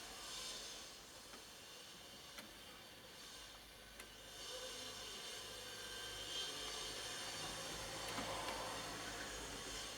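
Faint steady hiss with a couple of light clicks, about two and four seconds in.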